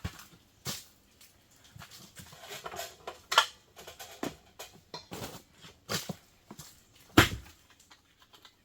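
Irregular clicks, taps and knocks of objects being handled, about a dozen, the loudest about three and a half and seven seconds in.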